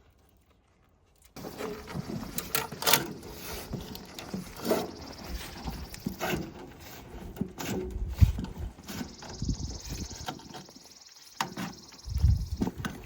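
Hand-work noise of tools and a heavy service cable being handled at an opened meter socket: an irregular run of clicks, knocks and clunks after a second of near silence, with a steady hiss for a few seconds near the end.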